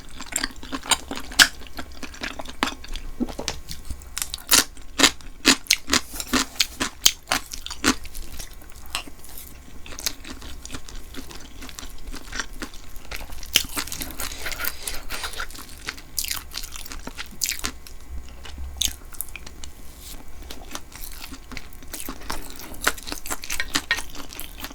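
Close-miked mukbang eating sounds: a person chewing beef tripe tteokbokki, with many quick wet clicks and smacks, busiest about four to eight seconds in and again near the end.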